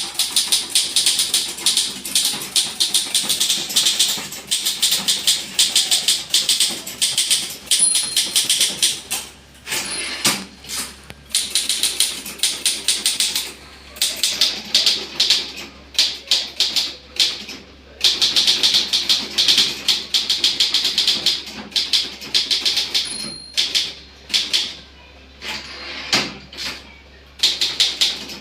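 Manual typewriter typed at high speed: a dense, rapid clatter of keystrikes, broken now and then by short pauses, with a few brief high rings.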